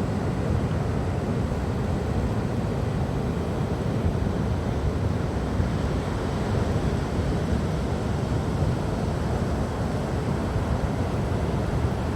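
Ocean surf breaking on a beach, a steady rumble with wind buffeting the microphone.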